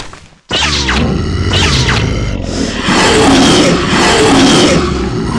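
A giant monster's deep roar, loud and sustained, starting about half a second in with a low rumble underneath.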